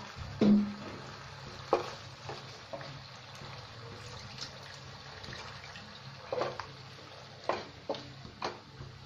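Wooden spatula stirring hilsa fish in a yogurt-mustard gravy in a nonstick wok, knocking against the pan about eight times over the steady sizzle of the simmering gravy. The loudest knock, about half a second in, rings briefly.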